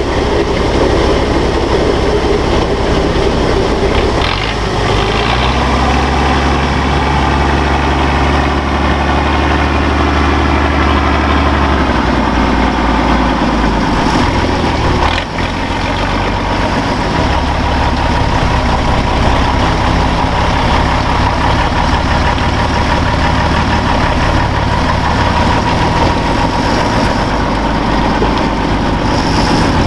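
Off-road truck engine running continuously. Its pitch steps up about six seconds in and slides back down around twelve seconds, with a single sharp click about fifteen seconds in.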